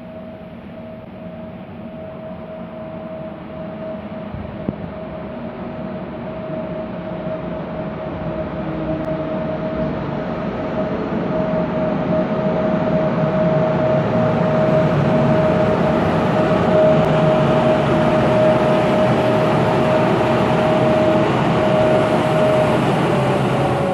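ÖBB class 1144 electric locomotive with double-deck coaches approaching and running past, its rumble and wheel noise growing steadily louder for about fourteen seconds, then holding. A steady high whine runs through it and drops a little in pitch near the end.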